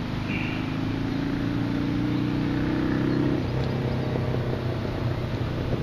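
An engine running steadily. Its higher tones drop away about three and a half seconds in, leaving a weaker low hum.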